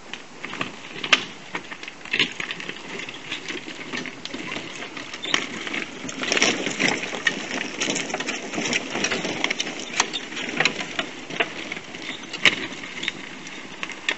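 Tramper electric off-road mobility scooter driving over a rough stony path: its motor whirs under the crunch of its tyres and many sharp clacks and knocks of loose rocks. It grows louder about a third of the way in as it passes close by.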